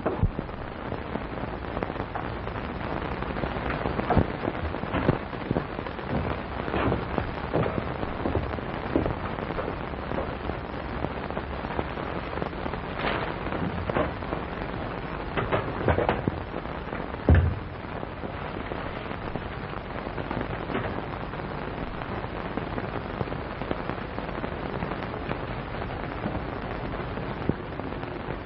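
Surface hiss and crackle of a worn early-1930s optical film soundtrack, with scattered irregular pops and one louder thump a little past halfway.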